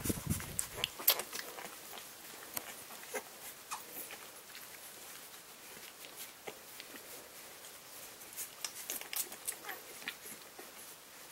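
Litter of 11-day-old English Springer Spaniel puppies nursing on their mother: scattered small clicking and smacking sounds from suckling, with a sharper click about a second in.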